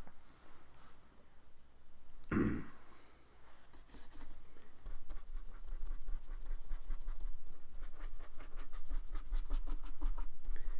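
An ink brush scratching on paper in quick, short, repeated strokes, starting about four seconds in, after a single thump about two seconds in.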